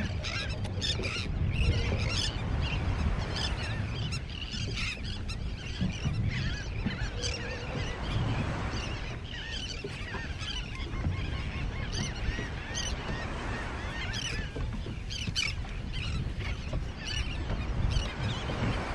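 A flock of birds calling over one another in many short, overlapping cries, above a steady low rumble.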